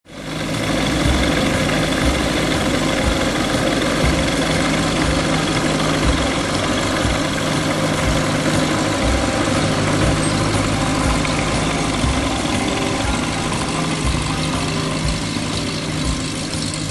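Ultralight aircraft's piston engine and propeller running at steady low taxi power, a constant hum. It fades in at the start and grows slightly quieter near the end as the plane moves away.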